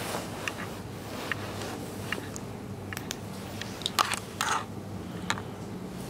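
Scattered small clicks and scrapes over a steady low hum, with the loudest, a sharp click, about four seconds in, followed by a brief scrape.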